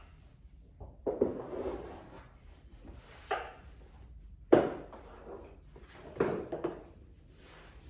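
Thumps and scuffs of platform heels and a body on a hardwood floor during pole floor work: about five separate knocks, the loudest around halfway through.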